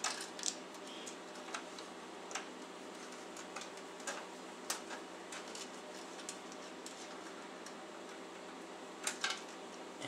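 Irregular clicks and light clatter of power-supply connectors and wiring being handled and plugged into a CD-ROM drive inside a metal desktop computer case, with a pair of sharper clicks near the end. A faint steady hum runs underneath.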